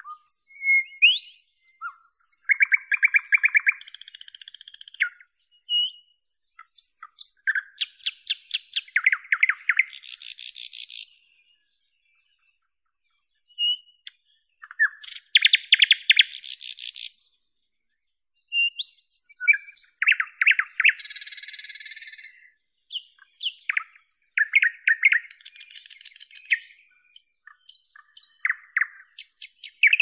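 Nightingale singing: a varied series of phrases made of rapid repeated notes and trills, separated by short pauses, with one longer pause of about two seconds near the middle.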